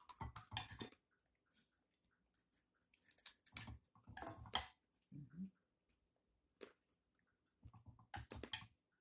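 Someone chewing crispy fried pork skin, crunching in short clusters of sharp crackles with quiet pauses between.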